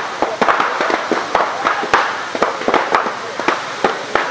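Burning illuminated fire boat crackling: many sharp, irregular cracks and pops, several a second, over a steady hiss of flames.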